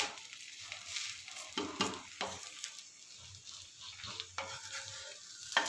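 A thin rice-and-lentil batter crepe sizzles quietly in an oiled pan. A wooden spatula scrapes under it a few times to loosen it for flipping.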